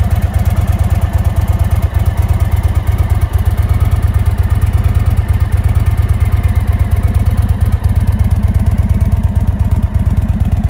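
2023 Indian Super Chief Limited's Thunderstroke 116 V-twin idling steadily, a loud even low beat of firing pulses through the exhaust.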